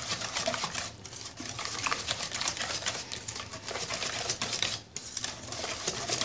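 Wire whisk beating runny cake batter in a stainless steel bowl: rapid clicking and tapping of the wires against the metal, with brief pauses about a second in and just before five seconds.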